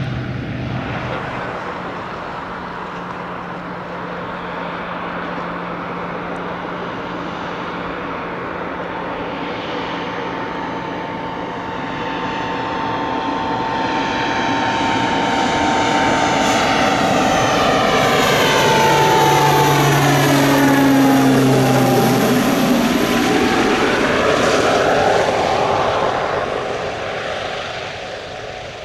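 Antonov An-2 biplane with a Honeywell TPE331-12 turboprop conversion flying past: the turbine and propeller sound grows louder as it approaches. About twenty seconds in, the pitch drops sharply as it passes overhead. It then fades as the plane flies away.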